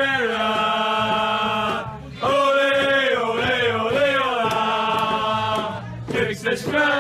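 Football stadium crowd singing a chant in unison, holding long notes, with a brief break about two seconds in.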